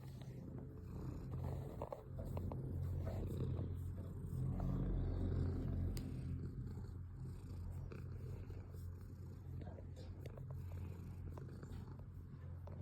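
Domestic cat purring steadily close up, a low continuous rumble that swells louder for a few seconds partway through.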